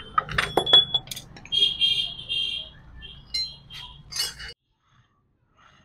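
Metal clinks and taps from a scooter gearbox: a steel bar knocking against the gears and shaft, with several sharp clinks in the first second, then lighter clattering as the loose gear parts are handled. The sound cuts out suddenly about four and a half seconds in.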